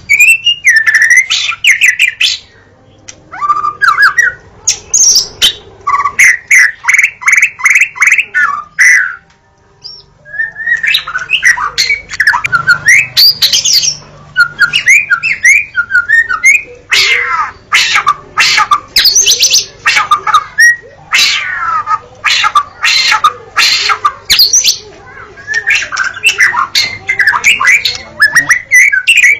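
White-rumped shama singing a loud, varied song of clear whistles, quick runs of repeated notes and harsh scratchy notes, pausing briefly about nine seconds in.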